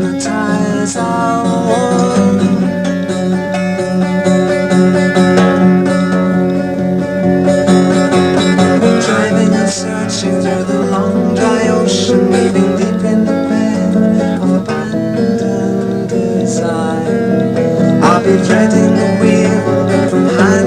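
Unamplified Baldwin 712 twelve-string semi-acoustic guitar strummed in chords, a steady instrumental passage on a home cassette recording.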